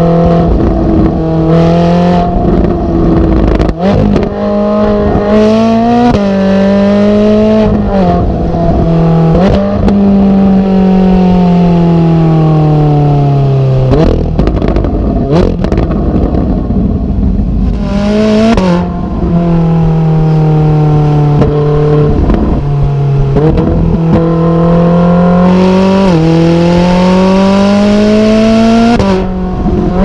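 Ferrari 458 Italia's high-revving 4.5-litre V8, recorded at the exhaust tips of a Capristo exhaust with the valves open, driving under load. Over the first ten seconds the revs rise and fall in short steps. Around the middle comes a long falling slide in pitch as the car slows, then a steadier stretch, and near the end several brief rising pushes.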